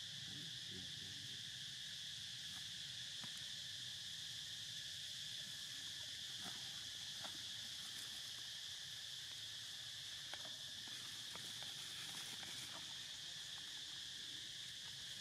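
Steady insect chorus, a continuous high-pitched buzz, with a few faint ticks scattered through it.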